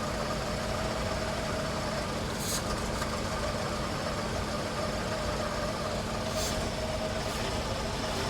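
Seat Arosa petrol-injected engine idling steadily, just restarted with freshly installed fuel injectors. Two brief hisses come through about a third and three quarters of the way in.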